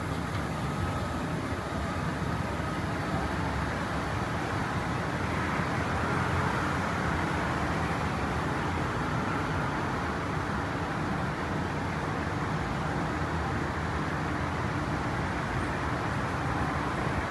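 Cabin noise of a Honolulu Skyline driverless metro train underway: a steady rumble and hiss of the running train, with a faint whine in the first few seconds.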